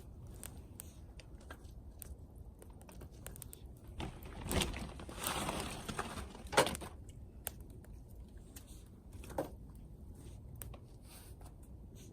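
Small wood fire crackling in a camping wood stove, with scattered sharp pops. A louder rustling crackle comes about four to seven seconds in, topped by one loud snap, and another snap follows a few seconds later.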